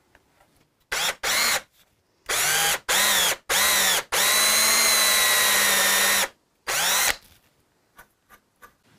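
Cordless drill boring into the end of a wooden chisel handle with a long twist bit, run in seven short trigger bursts. The motor whines up at each start and winds down at each release; the longest burst lasts about two seconds.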